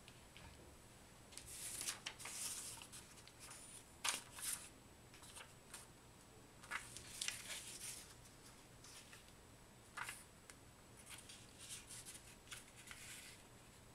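Faint, intermittent rustling and crinkling of sheets of origami paper being handled and folded, with a couple of sharper ticks, about four and ten seconds in.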